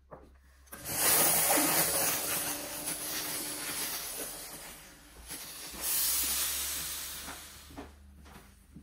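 Steam-generator iron blasting steam into fabric: a loud hiss that starts about a second in and slowly tails off, then a second, shorter hiss about six seconds in.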